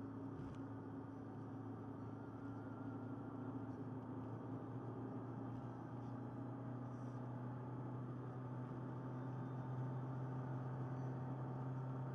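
Steady drone of a car's engine and tyre noise heard from inside the cabin while cruising on a highway, a low hum that shifts up slightly in pitch about four seconds in. A small click comes about half a second in.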